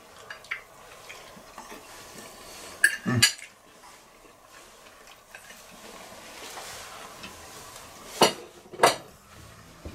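Forks clinking and scraping on plates during a meal, with a couple of sharp clinks about three seconds in and two more near the end.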